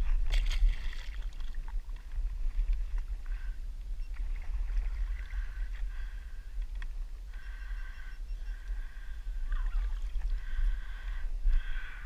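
A splash as a freshly released snook kicks away beside a kayak, then water moving along the hull with a steady low wind rumble on the microphone. From about halfway through, a faint, thin high squeak comes and goes in stretches of a second or two.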